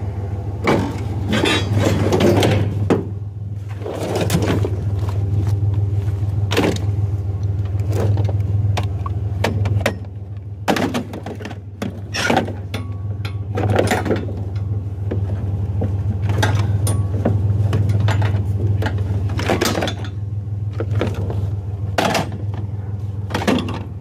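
Scrap metal and junk clattering and thunking in repeated knocks as it is piled and shoved into a pickup truck bed, over a steady low hum.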